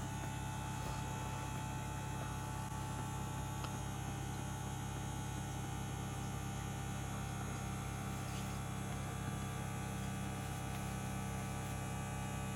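Battery-powered Zacro automatic electric ball pump running steadily with an even, low hum as it inflates a fully deflated soccer ball.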